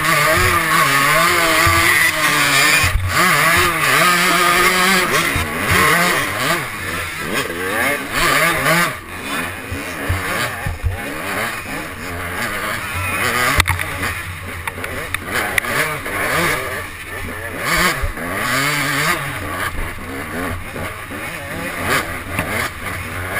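Off-road dirt bike engine revving up and down hard under load while climbing a rough trail, heard close from the bike itself, with other racers' bikes running nearby. It is loudest for the first nine seconds or so, then a little quieter.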